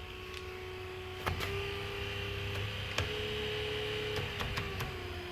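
Electric trolling motor running with a steady whine that steps up in pitch twice, each time with a click, as the speed is turned up, then steps back down near the end.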